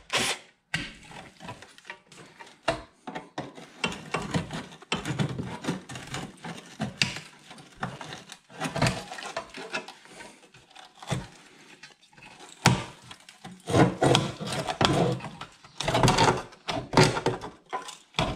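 Rusty car sheet metal being wrenched and worked loose by hand after its spot welds were drilled out: irregular knocks, scrapes and rattles of the panel, busiest near the end as it comes free.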